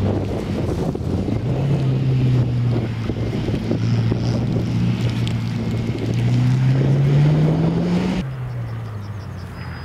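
Renault Clio competition car's engine driven hard past the microphone, with wind noise. Its note drops about a second and a half in, holds, then climbs steadily as it revs up, and cuts off abruptly near the end to a fainter, lower engine sound.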